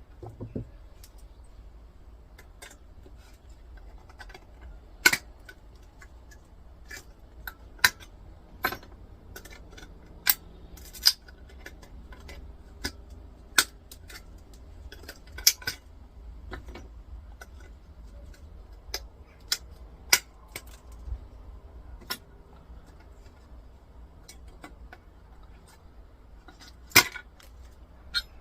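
Irregular sharp metallic clicks and clinks of small metal parts and hand tools being handled as pieces are taken off an old electricity meter.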